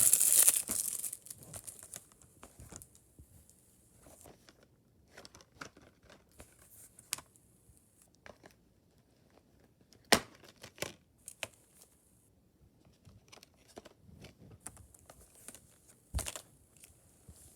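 Plastic shrink-wrap on a Blu-ray case crinkling and tearing as it is peeled off, loudest in the first second. Quieter handling follows with scattered light clicks and two sharp snaps, about ten and sixteen seconds in.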